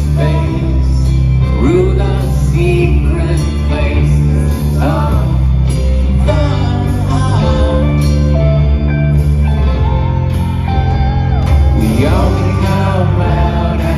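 Rock band playing live and loud on acoustic and electric guitars, bass and drums, recorded from the audience in an arena.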